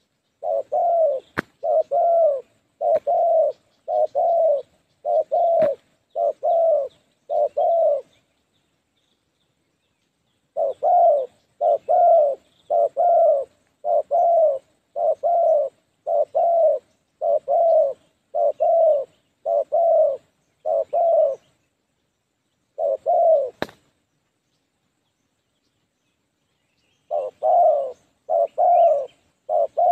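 Spotted doves cooing: runs of short, low coos, about one every three-quarters of a second, broken by a few pauses. A few sharp clicks fall among the coos.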